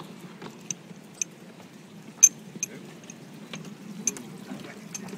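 Miniature steam railway train running, heard from a passenger carriage: a steady low rumble with irregular sharp clicks and clacks from the carriage running gear on the track. The loudest click comes about two seconds in.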